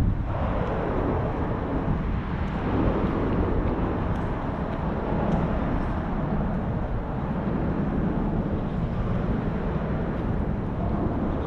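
Wind buffeting the microphone outdoors: a steady, uneven low rumble under a broad rushing hiss.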